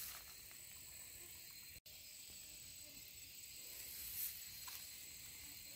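Faint, steady high-pitched outdoor insect chorus, with a few small clicks and a momentary dropout about two seconds in.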